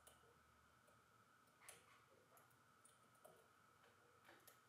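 Faint, scattered clicks of a lock pick working the pins inside a Millenco Magnum 7x4 security lock, about six light clicks at irregular intervals.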